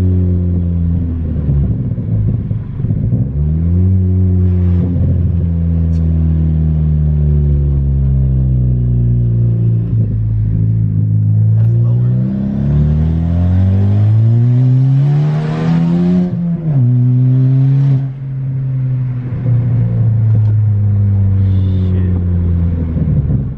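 Turbocharged Ford Focus ST engine on a 17 psi base-map tune, accelerating hard through the gears. Engine pitch drops and climbs again a few seconds in. A long rising pull with a growing turbo hiss follows, then a sudden drop in pitch at the next upshift, and the engine settles back to a steady drone.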